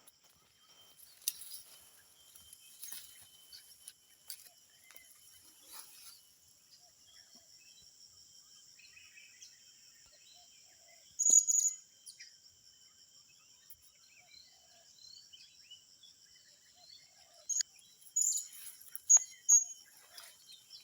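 Forest insects keep up a steady high-pitched drone while small birds give short, high chirps. The loudest chirps come about eleven seconds in and in a quick run near the end.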